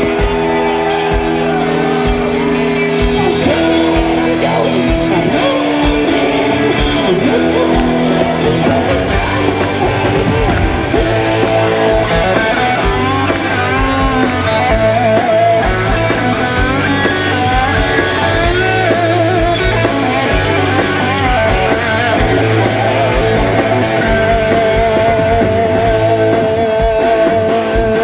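Hard rock band playing live and loud: electric guitars, bass and drums keeping a steady beat, with singing. Long held notes with a wide wavering vibrato ring over the band in the second half.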